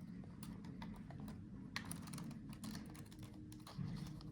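Light, irregular plastic clicks and taps as small ribbon-cable connector latches on a laptop motherboard are flipped open and the cables pulled free, over a faint low hum.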